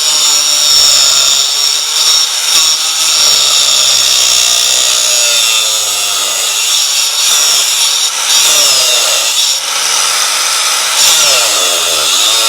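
Angle grinder on a chop stand cutting metal with an abrasive disc at a 45-degree angle: a loud, steady high whine, with the motor's pitch dipping and recovering as the disc is fed into the work, notably twice in the second half.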